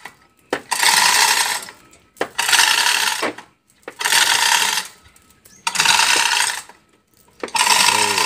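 Hand-operated hoist ratcheting as it lifts a car engine: five rattling strokes of about a second each, spaced about a second and a half apart.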